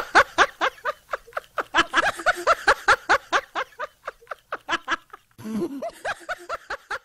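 A person laughing hard in a rapid run of 'ha-ha-ha' pulses, several a second, pausing briefly about five seconds in and then laughing on.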